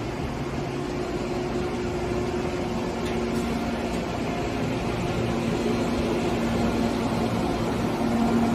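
An Amtrak train's Amfleet coaches moving slowly along the platform: a steady rumble with a low hum from the cars, one hum tone dropping out about three seconds in while a lower one carries on, the whole growing slightly louder.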